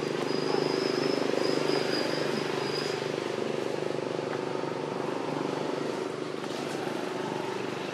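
An engine running steadily, slightly louder in the first two seconds, with a thin high steady tone over it for the first three seconds.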